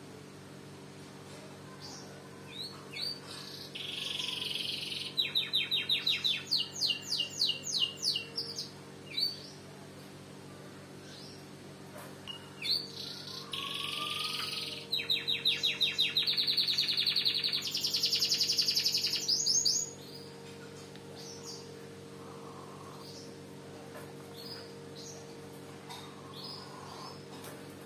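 Domestic canary singing: two long song phrases of fast trills and rolls, about three and thirteen seconds in, each running several seconds, with short chirps between them. A steady low hum runs underneath.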